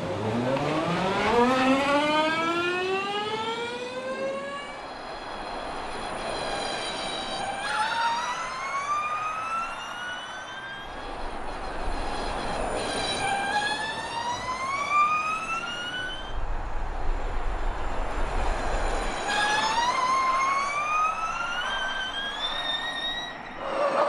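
NIO 333 Gen3 Formula E car's electric drivetrain whining as it accelerates, a high whine that climbs steadily in pitch. It climbs four times in turn, each pull lasting a few seconds.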